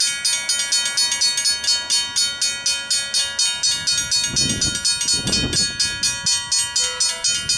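Griswold mechanical level-crossing bells ringing in a fast, even stream of strikes, about five a second, sounding the crossing's warning of an approaching train.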